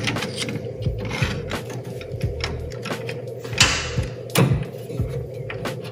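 Clicks and knocks of a Ridgid 377 flaring tool being handled as its clamp is loosened to free the freshly flared brake line, with a short scrape about three and a half seconds in and a sharp click just after it.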